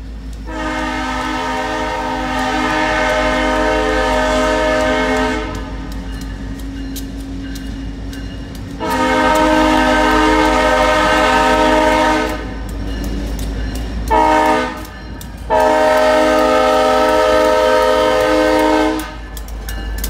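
Diesel locomotive air horn sounding the grade-crossing signal: two long blasts, a short one, and a final long blast, the warning for a train approaching a road crossing. A steady low diesel engine rumble runs underneath.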